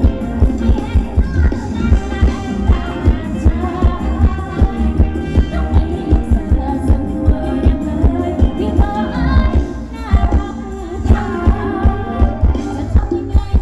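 Live band playing Thai ramwong dance music, with a singer over a steady drum beat of about two beats a second. The beat drops out for a moment about ten seconds in.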